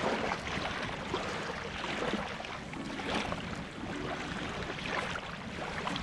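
Small waves lapping and washing up onto a sandy shore close to the microphone, a steady wash of water with repeated small splashes as each wavelet breaks.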